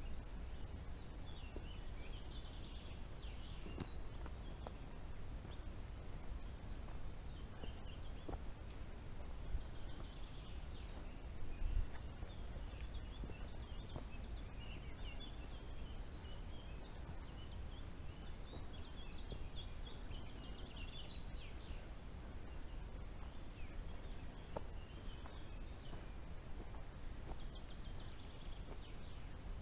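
Woodland songbirds singing in scattered high twittering phrases every few seconds, over a steady low rumble.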